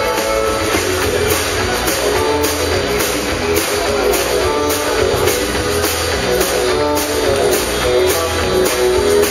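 Live country band playing: a strummed acoustic guitar, electric guitar, fiddle, bass and drums. The drums keep a steady, even beat.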